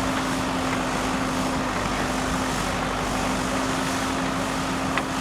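Diesel engine of a JCB backhoe loader running steadily with an even hum. There is a single sharp click near the end.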